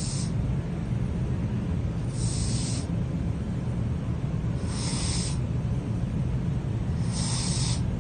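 Sleeping domestic cat snoring: a hissy breath about every two and a half seconds over a steady low rumble.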